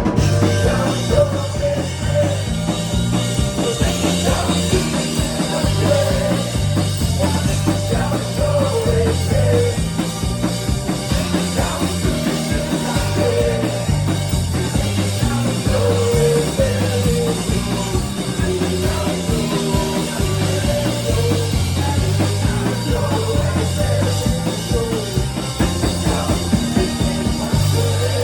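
Live rock band playing an instrumental passage of the song: a steady drum kit beat under a repeating low bass figure, with a melody line over the top.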